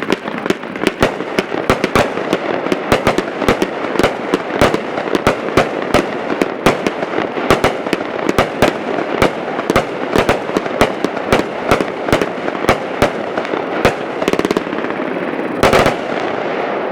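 A Danger Doll 36-shot firework cake firing, with sharp reports in quick succession at about three a second. Near the end comes a brief, denser flurry of shots.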